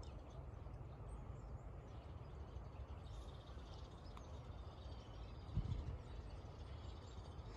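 Steady wind rumble on the microphone, with a stronger gust about five and a half seconds in, and faint bird calls in the background.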